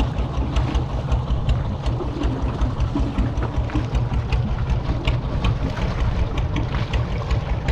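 A small fishing boat's engine running steadily with a dense, rapidly pulsing low-pitched throb as the boat moves on to the next net.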